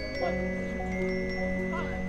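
Marching band front ensemble playing a soft passage on mallet percussion: held, ringing notes that change every half second or so over a low sustained note.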